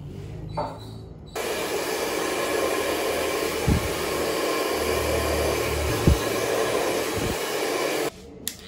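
Hand-held hair dryer blowing on high, switched on about a second and a half in and cut off abruptly near the end, with a couple of soft knocks from handling.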